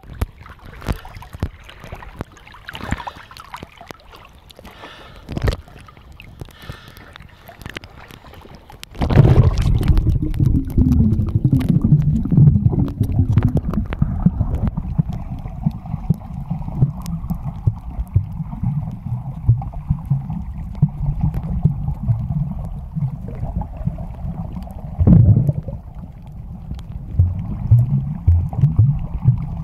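Faint open-air noise with scattered clicks, then about nine seconds in a sudden switch to the muffled low rumble and sloshing of water moving around a submerged camera.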